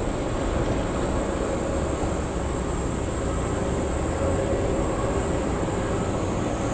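Boeing 777-200 airliner's jet engines rumbling steadily as it touches down and rolls out on the runway, with a steady high hiss above the rumble.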